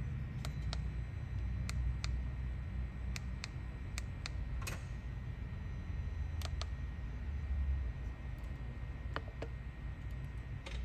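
Sharp plastic clicks of the buttons and control knob on a Polaris PMX-2 Rockford Fosgate audio head unit being pressed and turned, about a dozen at irregular intervals, over a steady low rumble.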